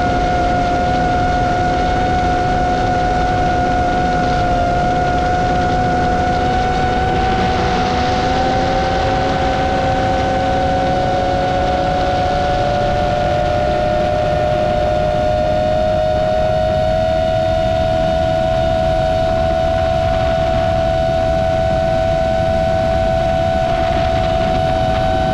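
Roma F4 LR FPV quadcopter's motors and propellers whining steadily in flight as two close pitches, the lower one slowly rising partway through, over a constant rush of wind noise.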